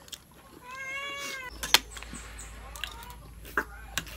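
A cat meowing: a long, arching meow about a second in and a shorter one near the end, with a few sharp clicks between them, the loudest about halfway through.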